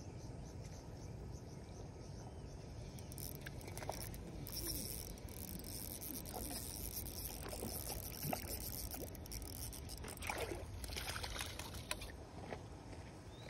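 Spinning reel being cranked with light clicks while a hooked trout is played in, with two spells of splashing at the water's surface, around the middle and near the end as the fish comes to the landing net.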